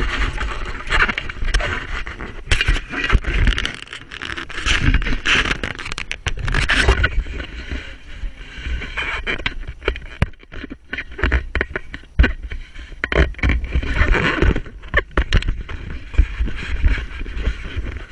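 Handling noise on a camera in a waterproof housing as it is swung about: uneven rubbing and scraping with many sharp knocks, over a low buffeting rumble.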